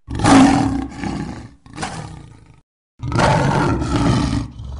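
Lion growling, a sound effect: three rough growls. The first and last are long and loud, and the middle one is shorter and fainter.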